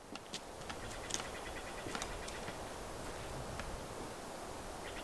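Outdoor ambience: a steady hiss with scattered light ticks, and a fast high-pitched trill of evenly spaced pulses, lasting about a second midway through the first half and starting again near the end.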